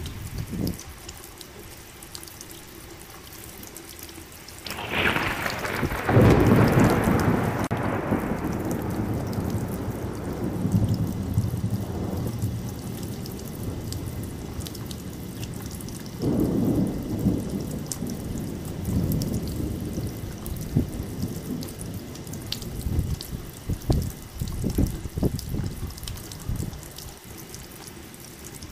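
Steady rain with thunder: a sharp crack about five seconds in rolls into a long rumble, a second rumble comes around the middle, and a few shorter claps follow near the end.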